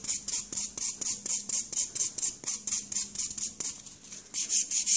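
Fine nail buffer file rubbed quickly back and forth over a natural fingernail, a rhythmic rasp of about four to five strokes a second that eases briefly near the end and then picks up again. It is roughening the nail surface as preparation for gel polish.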